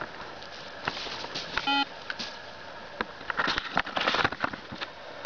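Koschei 25K pulse metal detector giving one short electronic beep about a second and a half in. It is followed near the middle by a spell of rustling and handling noise with a few clicks.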